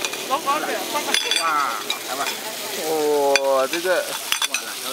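Prawns and squid in gravy sizzling on a cast-iron hot plate, a steady hiss, with a few sharp clinks of serving utensils.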